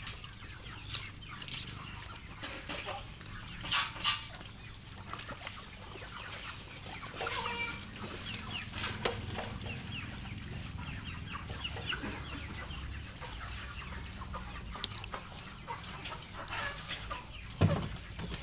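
Chickens clucking in the background, with a few short knocks and clicks, the loudest about four seconds in and again just before the end.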